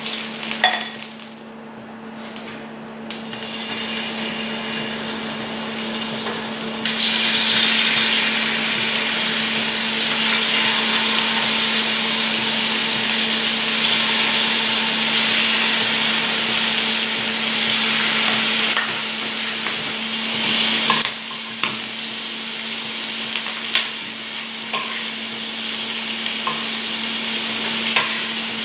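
Chicken livers sizzling as they fry in hot oil in a stainless steel skillet. The sizzle turns louder about seven seconds in and eases off again about twenty seconds in, with a few light clicks of utensils against the pan and a steady low hum underneath.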